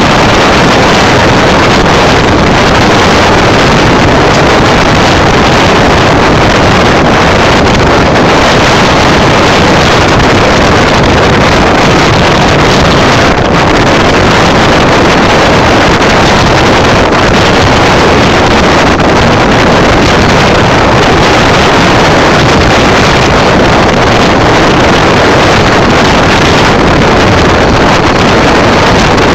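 First Great Western sleeper train running at speed, a loud, steady rushing noise with wind buffeting the microphone.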